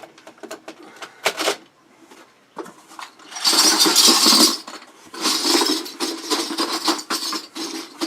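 A container full of metal bottle caps shaken and handled, the caps rattling and clattering against each other: a few single clicks, then two long spells of dense clatter, the first about three and a half seconds in.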